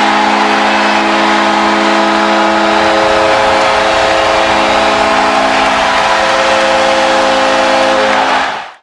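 New York Islanders' arena goal horn sounding one long, loud blast: several steady tones held together as a chord, cut off sharply near the end.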